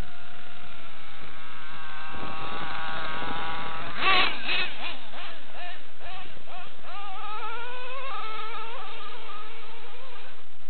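Nitro engine of a Traxxas Revo RC truck, a Dynamite .28 big block, running with a high-pitched buzz and revving up and down. There is a sharp, loud burst about four seconds in, and then the pitch climbs in several rising sweeps as the truck accelerates.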